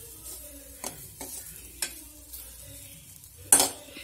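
Steel ladle stirring and scraping dried anchovies frying in oil in a metal kadai, over a steady sizzle. The ladle clinks sharply against the pan twice and strikes it with one loud clank about three and a half seconds in.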